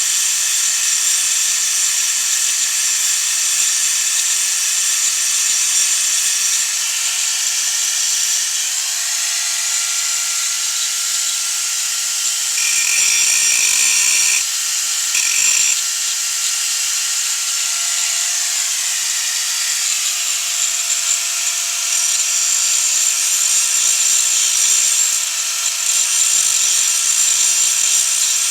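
A small handheld electric grinding tool runs with a steady high whine while grinding a welded metal part. Its sound changes briefly about halfway through.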